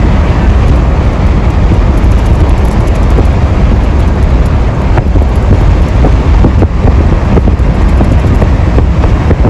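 Loud, steady rumble of a moving vehicle with wind buffeting the microphone.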